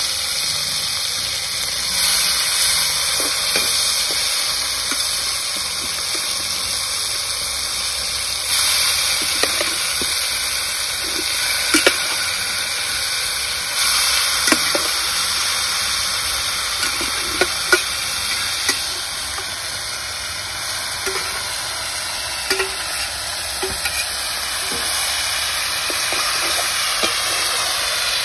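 Seasoned rooster pieces frying in hot oil in a black pan over a wood fire, sizzling steadily. A metal spatula stirs them, with occasional sharp taps and scrapes against the pan.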